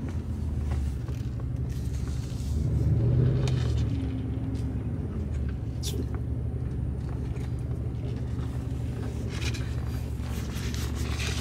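Road noise inside a moving car: a steady low rumble that swells briefly about three seconds in, with a few faint clicks.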